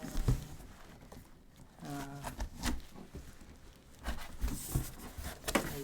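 A cardboard box being handled and opened: scattered rustles, scraping and tearing, and knocks. About two seconds in, a short pitched voice-like sound bends in pitch.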